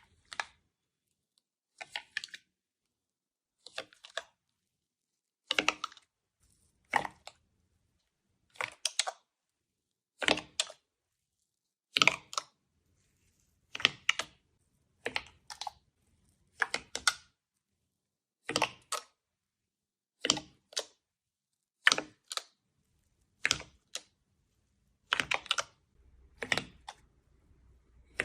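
Slime being pressed and squished by hand, making short crackly, clicking squelches roughly every one and a half seconds, many of them in quick pairs.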